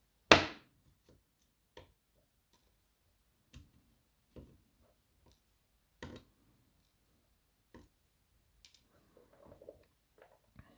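Small metal clicks and taps from lock springs being taken out of a BKS 88 cylinder housing and handled. One sharp click comes about half a second in, then scattered light ticks, with a short flurry of taps near the end.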